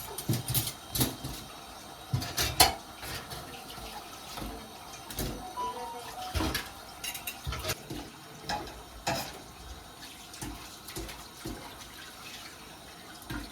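Scattered clinks and knocks of kitchenware being handled, irregular and sparse, the sharpest about two and a half seconds in.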